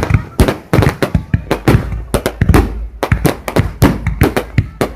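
Fireworks display: a rapid barrage of bangs and crackles, several a second, without let-up.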